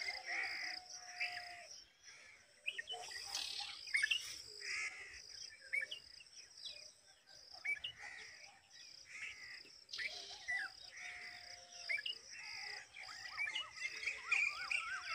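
Red-vented bulbul nestlings begging with repeated short chirps and calls over a steady high-pitched buzz, which comes and goes at even intervals.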